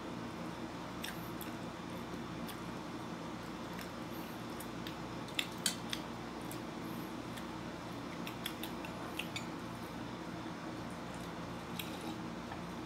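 A person chewing a small bread roll, with scattered short mouth clicks and smacks, the strongest a few together about five to six seconds in. A steady low room hum runs underneath.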